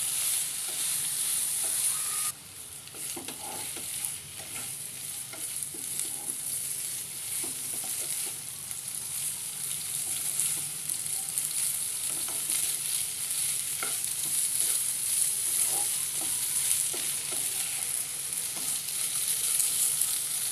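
Penne pasta and vegetables in sauce sizzling in oil in a nonstick frying pan as they are stir-fried, with a spatula scraping and tapping against the pan now and then. The sizzle dips briefly about two seconds in.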